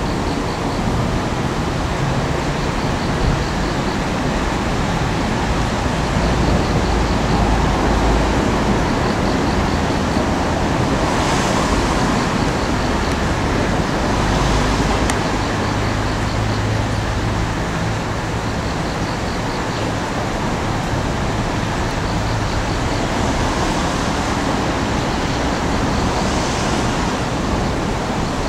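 Heavy demolition excavator's diesel engine running steadily as it works on a scrapped railcar: a low rumble under a continuous wash of noise that swells a few times. Faint, short high ticks repeat about once a second.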